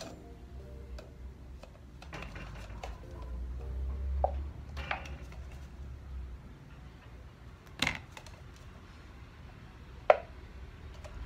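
Thin plastic of a cut soda bottle crackling and clicking as it is turned by hand over a low gas-stove flame and warps in the heat, with a few sharp crackles, the loudest about eight and ten seconds in.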